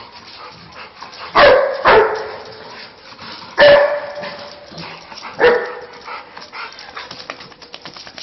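A dog barking: four short barks, two close together about a second and a half in, one near the middle and one about five and a half seconds in.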